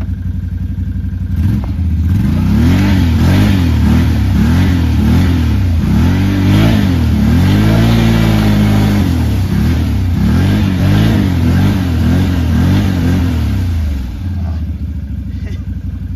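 Can-Am Outlander ATV engine idling, then revved hard over and over, pitch rising and falling about twice a second with one longer hold in the middle, before dropping back to idle near the end. The ATV is trying to push through deep mud and getting stuck.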